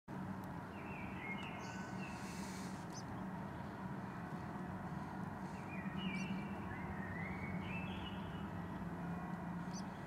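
Newly hatched pigeon squab giving thin, high peeps in several short runs over a steady low hum.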